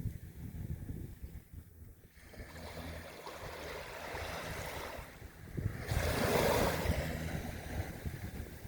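Ocean waves washing onto a beach, with one wave breaking loudest about six seconds in and then receding. Wind rumbles on the microphone underneath.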